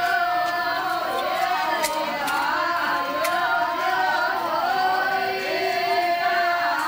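A group of women singing together, several voices overlapping, with some notes held long.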